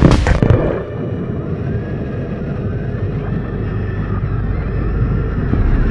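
A few heavy booming hits in the first half-second, then a steady low rumble with faint, drawn-out wavering tones above it.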